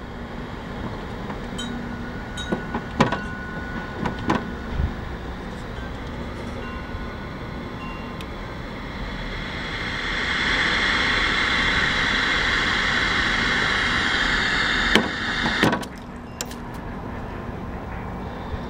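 A few light clicks and knocks, then a steady hiss that starts about ten seconds in, runs for about six seconds, and cuts off suddenly amid a few clicks.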